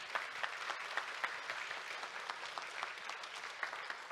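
Audience applauding, many hands clapping at once; the applause begins to thin out near the end.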